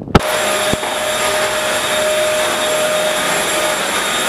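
Electric hand dryer running: a steady rush of air with a high whine. A brief knock comes under a second in.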